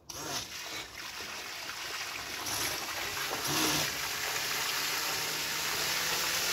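Water jet from a 3D-printed stainless-steel-impeller M-Jet 35 RC jet pump held underwater, its stream spraying and splashing across a pool's surface. The rushing splash starts suddenly and grows louder over the first few seconds, then holds steady.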